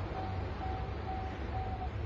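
Japanese railway level crossing warning bell ringing: a single electronic tone repeating about twice a second, over a low steady rumble.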